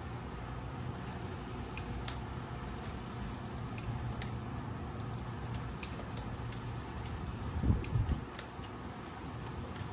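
Faint light metallic clicks of a wrench turning out a starter mounting bolt, over a steady low hum, with a louder dull knock about eight seconds in.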